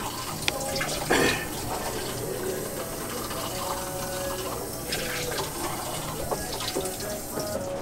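Water running from a tap into a container, with a couple of clunks from handling it, the flow shutting off near the end.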